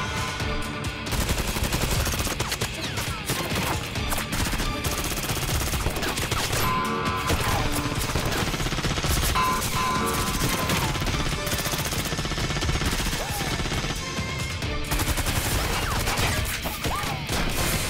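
Action-scene sound effects: a dense run of rapid bangs and crashes, with debris flying, over background music.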